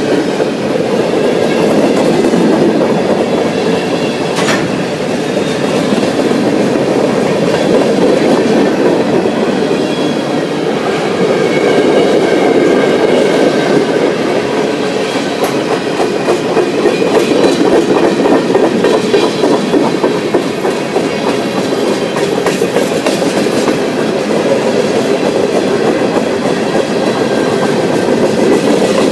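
Freight train cars (covered hoppers and boxcars) rolling past: a steady rumble of steel wheels on the rails, with faint high tones from the wheels above it.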